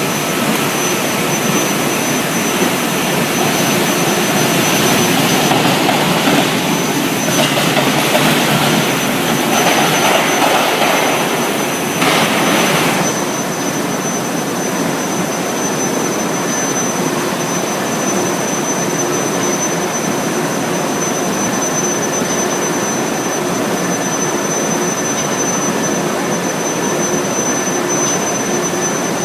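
Induction heating furnace line for square steel billets running: a steady loud industrial noise with a thin, constant high-pitched whine over it, growing rougher and louder for several seconds partway through.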